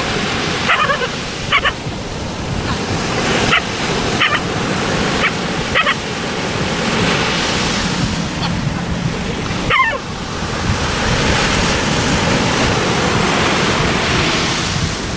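Dog giving short, high yelping barks, several in the first six seconds and one more about ten seconds in, over the steady wash of surf breaking on a beach.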